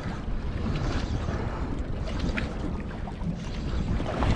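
Steady wind noise on the microphone with water washing against a boat's hull out on open sea.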